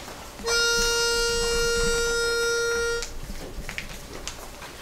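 Pitch pipe blown once, one steady note held for about two and a half seconds: the starting pitch for the barbershop quartet.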